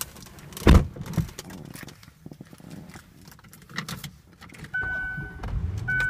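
A car door shuts with a single loud thump about a second in, followed by keys rattling and clicking at the ignition. Near the end a steady electronic warning chime starts sounding from the dash.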